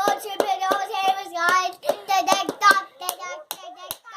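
A child singing while tapping drumsticks, with sharp stick clicks about three or four times a second; the singing trails off near the end.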